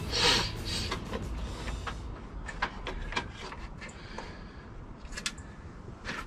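Handling noise from work over an engine bay: a brief rustle just after the start, then scattered light clicks and taps as tools and parts are moved about.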